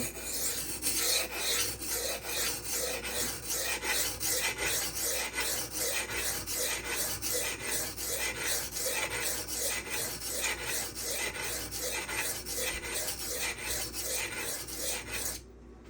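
M390 steel knife blade being stroked back and forth across a silicon carbide whetstone, a rhythmic scraping of about one and a half to two strokes a second that stops just before the end. The edge is being reground to about 20 degrees and is not yet at the apex, with no burr raised.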